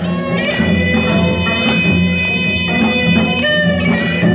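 Live Korean traditional music for a bara cymbal dance. A reedy wind instrument holds long, wavering notes over a steady low drone, with a few sharp percussion strikes.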